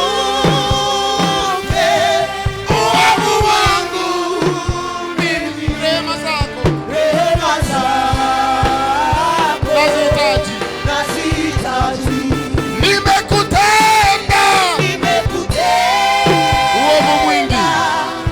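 Worship music: held, wavering sung notes over band accompaniment with a steady drum beat.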